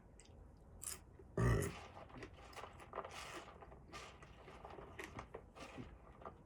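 A man burps once, loudly, about a second and a half in, after a greasy, salty meal that has left him feeling sick. Quieter scattered clicks and crackles come before and after it.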